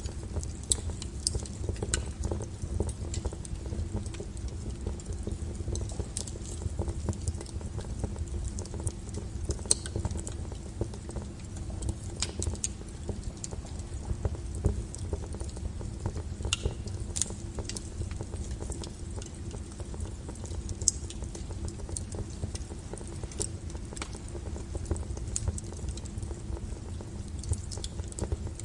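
Wood fire burning: a steady low rumble of flames with irregular crackles and sharp pops from the burning wood.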